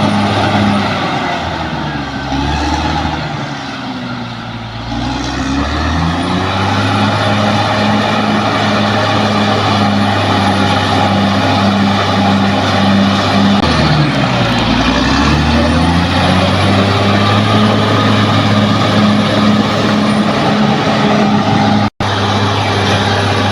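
Bulldozer's diesel engine running hard at a steady pitch, the revs sagging and climbing back twice, once about two seconds in and again about two-thirds of the way through.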